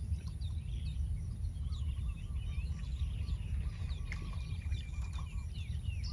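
Small birds chirping and calling in quick, overlapping short notes over a steady low rumble. A thin held whistle sounds for about two seconds in the middle.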